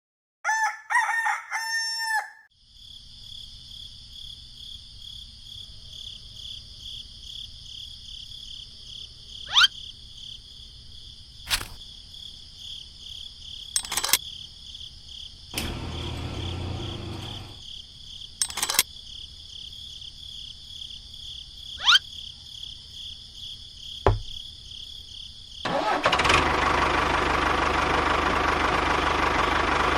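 A short crowing call with falling pitch near the start. Then a steady high-pitched whine runs on, broken by a few sharp clicks and a brief low rumbling burst about halfway. A loud, steady rushing noise sets in over the last few seconds.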